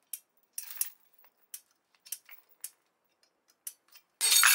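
Light metallic clicks and clinks of a loaded chain and hooks as the pull on a 3D-printed PLA layer-adhesion test specimen builds up, then near the end a loud snap as the specimen breaks at about 84 kg, with the chain and hooks clattering and ringing.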